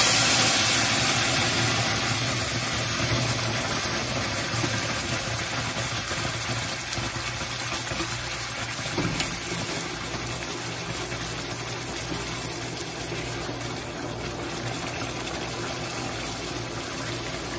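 Blended chile ancho sauce frying in hot oil in a cast-iron skillet: a loud, steady sizzle, loudest at first as the sauce hits the oil and slowly easing off.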